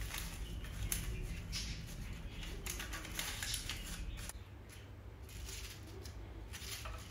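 Paper cake cases rustling and crinkling as small cookies are set into them and arranged, in short irregular bursts that are busiest for about four seconds and then thin out, over a steady low hum.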